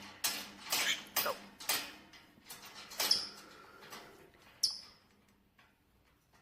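A small pet animal making a series of short scratchy rustling noises that thin out after about four seconds, with one brief high squeak about four and a half seconds in.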